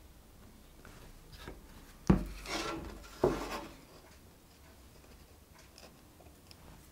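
Two wooden knocks about a second apart, each followed by a short scrape, as glued OSB boards are set on a wooden workbench and pushed together into a butt joint.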